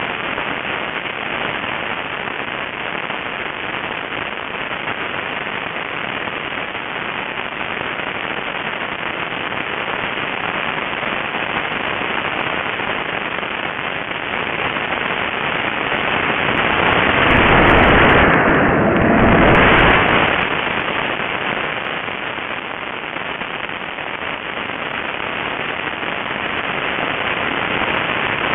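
Wind rushing over an onboard camera on a radio-controlled model airplane in flight: a steady, crackly rush that swells louder for about four seconds around two-thirds of the way through, dipping briefly between two peaks.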